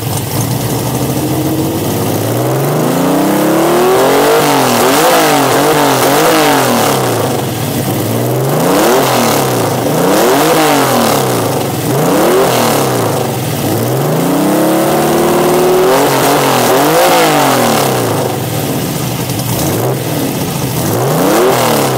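Weslake-tuned engine of a Ford Capri being revved while standing. It idles briefly, then gives repeated throttle blips, several quick ones in a row and a few longer climbs in pitch that drop back toward idle.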